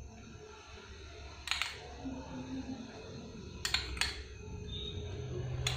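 A metal spoon clicking a few times against a small plastic bowl as ketchup is spooned out, over a low steady room hum.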